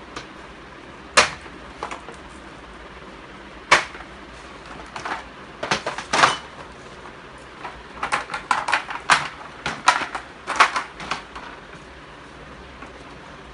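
Moulded plastic panels of a kids' chest of drawers knocking and clicking as they are handled and fitted together. A single sharp knock comes about a second in and another near four seconds, then quick runs of clicks and clatters in the middle and again later.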